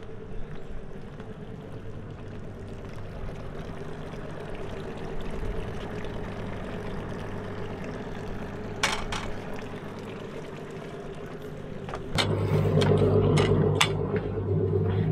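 Evinrude G2 outboard motor idling with a steady hum. It gets louder about twelve seconds in, and a few sharp knocks come near the end.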